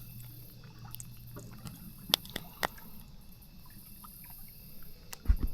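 Faint water sounds with a few sharp clicks while a small bass is played in on a fishing line, and a short low thump near the end.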